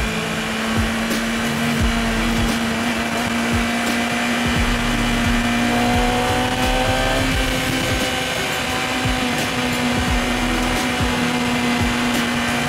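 Yamaha R6's 599 cc four-cylinder engine running at steady speed in a tunnel: a constant engine whine, with a higher tone rising gradually over several seconds and breaking off about seven seconds in.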